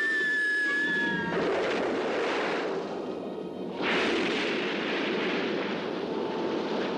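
A woman's long, steady scream as she falls, cutting off about a second in. It gives way to a rushing, crashing noise, with a sudden loud crash about four seconds in, over background music.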